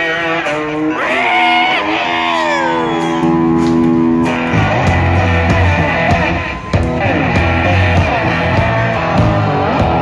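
Live blues-rock band playing: an electric guitar lead with long, bending notes over the drum kit. A heavy low bass comes in about halfway.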